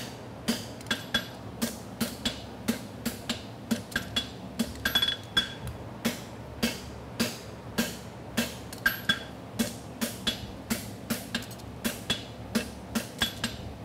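Hand hammer striking a red-hot steel horseshoe bar on an anvil, about two blows a second, each with a short metallic ring, as the outside of the bar is bumped up. A steady buzz from a Portacool cooling fan runs underneath.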